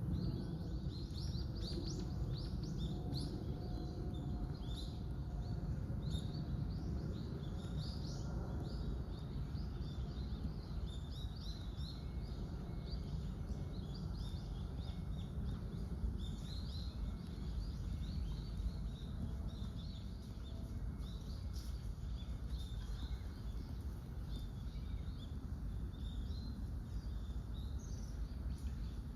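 Small birds chirping in many short, high calls over a steady low background rumble.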